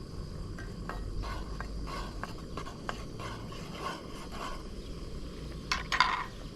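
A utensil stirring boiling water in a Trangia pan, swirling it to poach eggs, in short scraping strokes about two a second. Two louder knocks come near the end.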